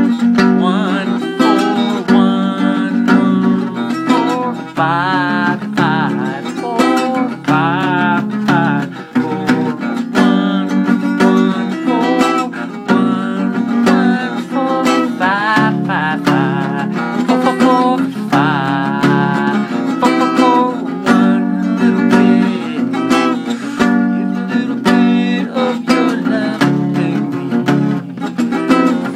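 Steel-string acoustic guitar played continuously, picking and strumming chords of a I–IV–V progression in a different position on the neck.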